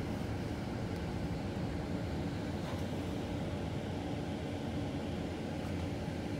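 Zurich tram running along the street, heard from inside the passenger cabin: a steady, low running noise with no distinct knocks or announcements.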